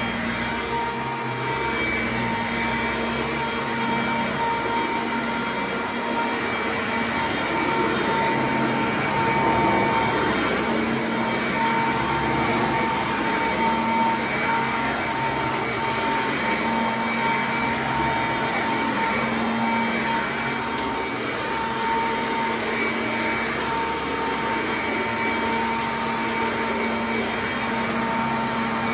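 Sanitaire commercial upright vacuum running steadily over carpet, its motor holding a steady whine over the rush of air.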